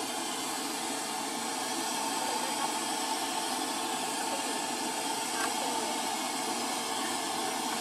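Steady hissing rush of a gas stove burner under the cooking pot, running evenly throughout.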